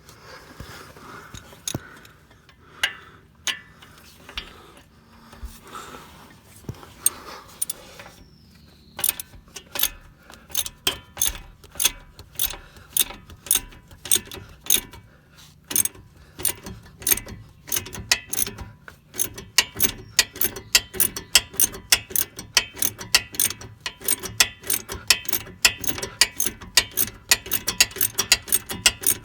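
Socket ratchet clicking as it backs out the lower 15 mm bolt of a truck's front shock absorber. The first several seconds hold only scattered clicks and knocks. Then comes a steady run of quick ratchet clicks that speeds up near the end.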